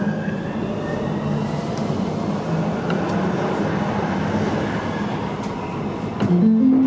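Nuremberg U-Bahn DT3 metro train pulling out of a station into the tunnel, heard from inside: a steady rolling noise with a humming tone from the drive. About six seconds in, a louder tone steps up in pitch and holds.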